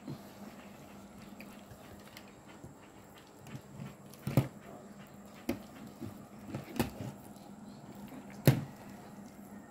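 A bare hand squishing through thick, wet rice-flour batter in an aluminium pot, with a few sharp knocks on the pot, the loudest about four and eight and a half seconds in.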